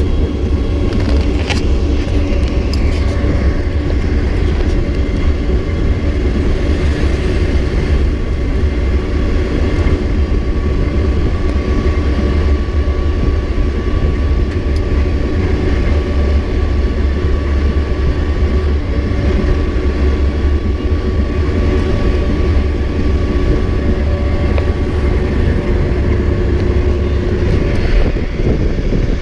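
Pickup-truck bus driving at speed, heard from inside its open back: a steady, loud engine drone under road noise. A few knocks come about a second and a half in.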